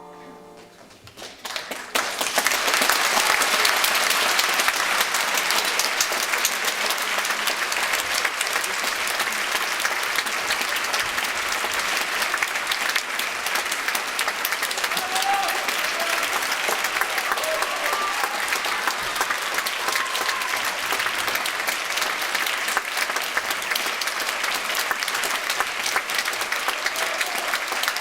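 Theatre audience applauding after a ballet performance: dense, steady clapping that breaks out about a second and a half in and keeps going, with a few faint voices calling out midway.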